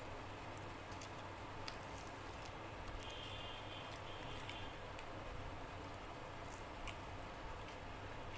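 Soft eating sounds close to the microphone: fingers tearing deep-fried luchi and scooping chicken curry, heard as scattered small clicks and squishes over a steady low hum.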